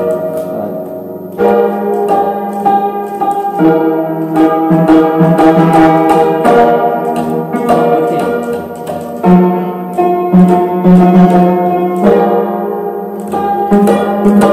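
An old upright piano with its front panels off is played with both hands: a slow run of chords, each struck and held for a second or two before the next.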